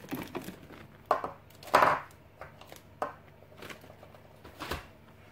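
Packaged items being pushed around on a tabletop: a handful of short rustles, knocks and scrapes of packaging and plastic bags, the loudest a little under two seconds in.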